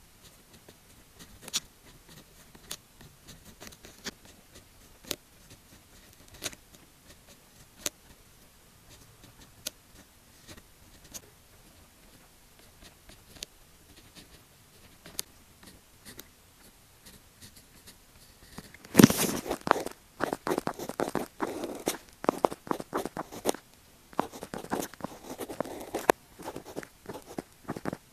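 Pen writing on paper: for the first two-thirds only faint, scattered ticks of short strokes. About two-thirds of the way in, louder, denser scratching strokes begin and continue, with a brief pause before the end.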